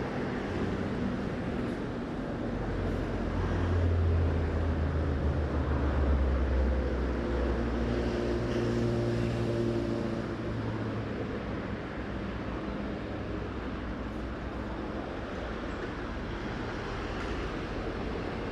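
A low engine rumble of a passing vehicle swells about three seconds in and fades out after about ten seconds, over a steady hiss of outdoor noise from wind and water.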